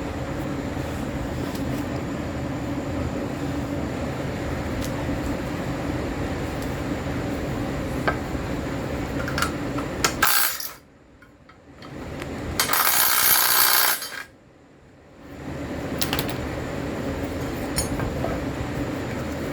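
Metal tools and parts clinking and tapping against each other over a steady hum. About two-thirds of the way through, a loud hissing rush lasts a second or so.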